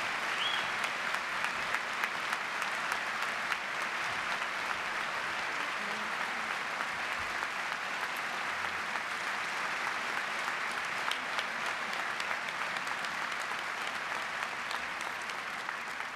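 Large audience applauding steadily, welcoming the speaker to the podium.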